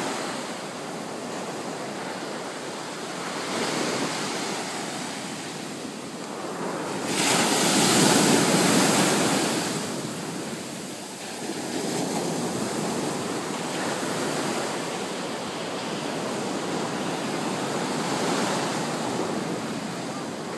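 Ocean surf breaking and washing up on a sandy beach: a continuous rushing wash that swells and eases, loudest about seven to ten seconds in.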